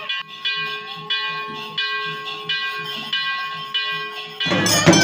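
Temple bells ringing in a steady rhythm, about two strokes a second, each stroke ringing on. About four and a half seconds in it cuts off abruptly and loud traditional music with drums starts.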